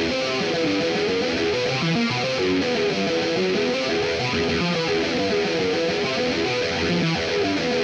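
Distorted electric guitar from GarageBand's Hard Rock virtual guitar playing a quick succession of single notes as a melody line.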